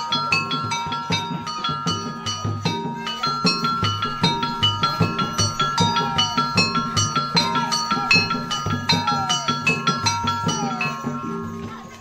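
Traditional Banjar music for the Tuping Burung masked dance: tuned metal percussion plays a quick, repeating pattern over a steady drum beat.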